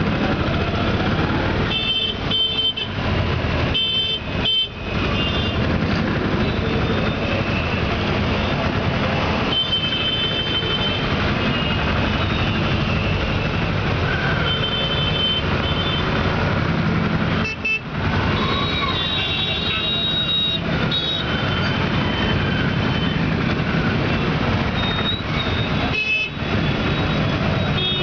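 Dense, congested city traffic heard from inside an open auto-rickshaw: motorcycle, car and rickshaw engines running together in a steady din. Short horn toots come again and again throughout, sometimes several overlapping.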